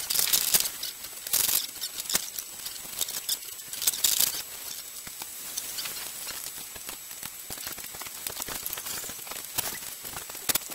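Plastic pool-skimmer parts being handled on a workbench: irregular clicks, light knocks and rustling, a few of them louder.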